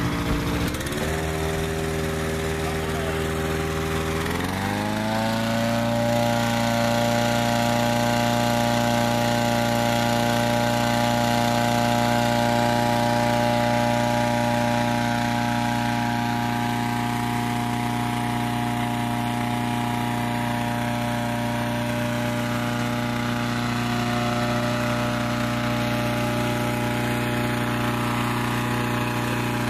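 Petrol-engined balloon inflator fan running and blowing cold air into a hot-air balloon envelope. Its engine speeds up in two steps within the first five seconds, then holds a steady high speed.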